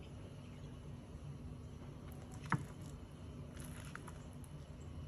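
A fork working at leaf-wrapped moimoi on a plate: one sharp click about halfway through and a few faint ticks just after, over a low steady hum.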